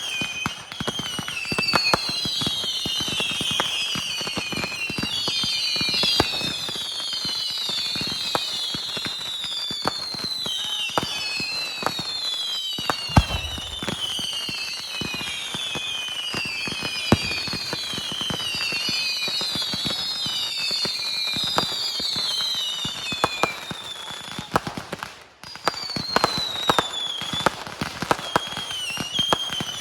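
Fireworks going off: a dense run of crackles and pops with many overlapping falling whistles, and one deep boom about thirteen seconds in. The sound briefly cuts out a few seconds before the end.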